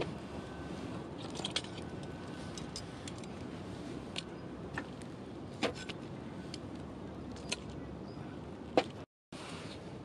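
Wood fire burning down in a steel fire stand, its embers crackling with scattered sharp clicks over a steady hiss, and a few louder knocks and clinks as metal tongs set a log on the embers. The sound drops out for a moment near the end.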